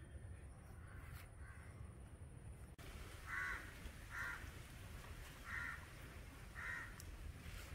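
A crow cawing four times, the short caws a second or so apart, starting a few seconds in over a steady low rumble.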